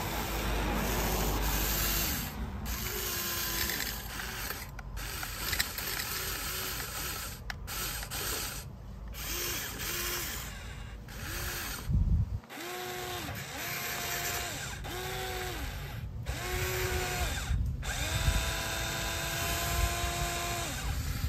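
Huina 593 remote-control excavator's electric motors and gearboxes whirring in short bursts of about a second, each whine rising as a motor starts and falling as it stops, with a longer whine near the end. A thump about halfway through.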